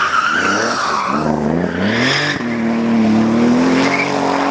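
Touring race car engine at full effort on a hill-climb course. The revs drop and then climb again, then hold high and fairly steady, with tyre squeal at first.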